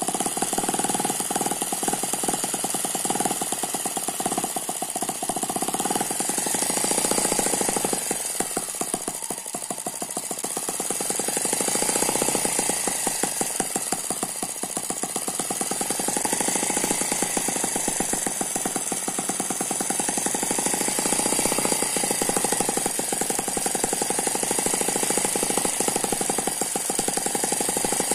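Eachine ET9 miniature single-cylinder four-stroke gasoline engine, dynamically balanced by twin internal counterbalances, running steadily at speed with a rapid, even firing beat and a steady high gear noise over it.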